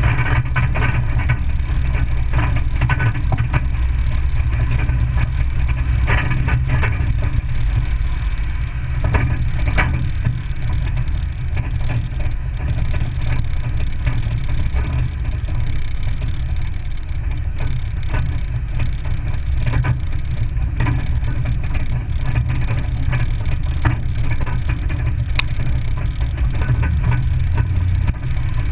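Off-road vehicle driving slowly along a gravel and dirt forest track: a steady low engine and tyre rumble, with frequent short clicks and knocks from stones and bumps under the wheels.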